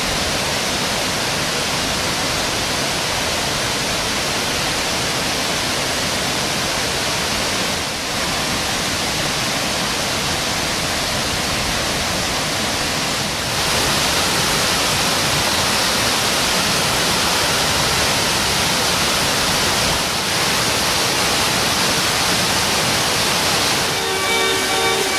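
Large garden fountain at the Villa d'Este: a broad cascade of water falling into its basin, making a steady, even rush of splashing water. Near the end, a chord of steady tones comes in over the water.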